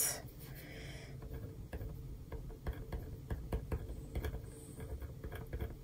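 Pen writing on paper: faint, irregular light ticks and scratches as short words are written in small handwriting.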